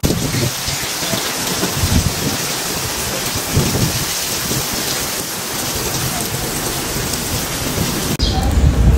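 Heavy rain pouring steadily, a dense even hiss with a few brief low rumbles. Near the end the downpour sound cuts abruptly to a much thinner one.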